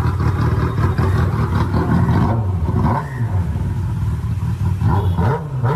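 Kawasaki ZX-10R inline-four engine running with its exhaust and de-cat pipe removed, being revved so the pitch falls and rises a few times.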